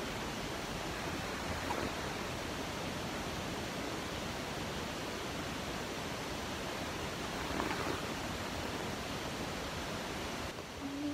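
Steady, even rushing hiss with no distinct events, which drops in level near the end.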